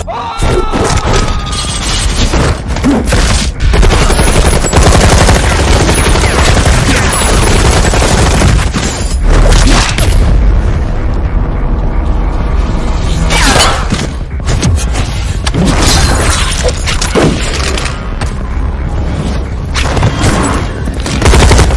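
Loud action-film sound mix of booms and rapid sharp impacts, with a music score underneath.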